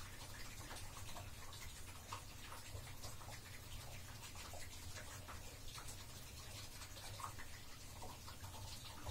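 Bathtub water draining down the plughole: faint, irregular small pops and gurgles over a low steady hum.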